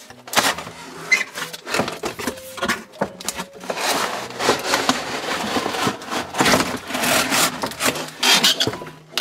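A plastic toy playset being pulled out of a cardboard box, scraping and rubbing against the cardboard in many irregular strokes, busiest in the second half.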